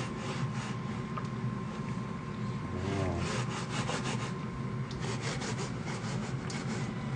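Silicone spatula stirring and scraping through a cream sauce with peas and prawns in a stainless steel pan, a run of repeated rubbing strokes.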